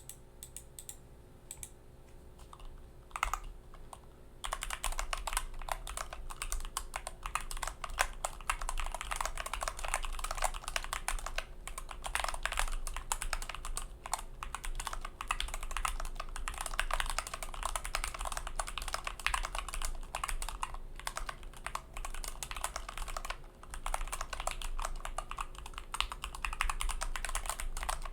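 Typing on an Idobao ID42 Abacus, a 40% integrated-mount aluminium-case keyboard without foam, fitted with Gateron KS8 Yellow linear switches and GMK Kaiju clone keycaps. A few scattered keystrokes at first, then steady fast typing from about four seconds in.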